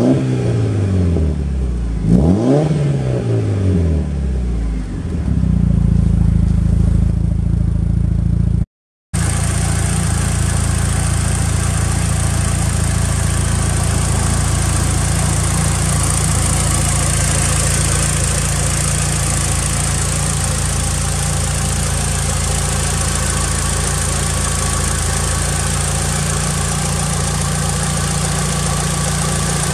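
Mitsubishi Lancer Evolution VIII MR's turbocharged 4G63 inline-four, a G-Force complete engine, revved twice at the tailpipe and falling back to idle. After a brief cut it idles steadily, heard from the engine bay.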